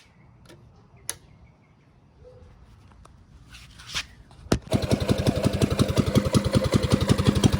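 Predator 212cc single-cylinder engine on a mini bike starting about four and a half seconds in, then running steadily with rapid, even firing pulses, on fresh 10W-30 oil after an oil change; it sounds all nice.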